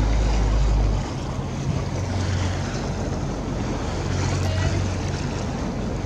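Tour boat's engine running at low idle with a steady low hum, under the rushing of wind and choppy sea. Heavy wind rumble on the microphone drops away about a second in.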